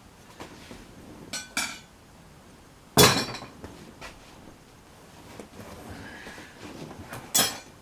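Old metal hand tools clinking and clanking against each other as they are handled and sorted in a box. There are two light clinks, a loud clank with a short ring about three seconds in, and another clink near the end.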